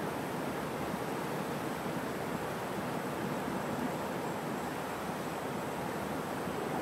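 Steady rushing of river water over rapids, an even hiss with no clicks or rhythm.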